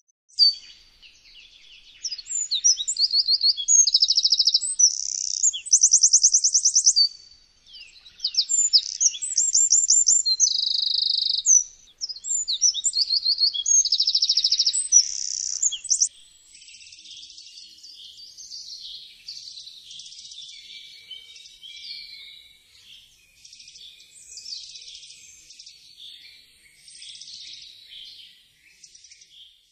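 Eurasian wren singing: three loud songs of rapid high trills and buzzy notes, then fainter, more continuous song from about halfway on.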